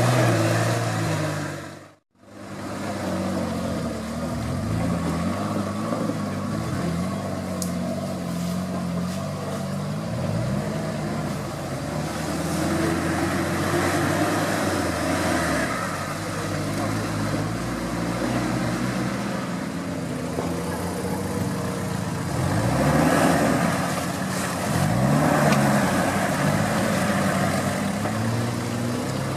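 Toyota Land Cruiser engine working off-road, revving up and dropping back again and again. The sound cuts out briefly about two seconds in.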